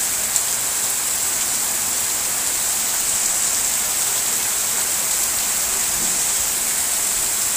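Heavy rain falling steadily: a dense, even hiss, with water running off a roof edge. One brief tick just under half a second in.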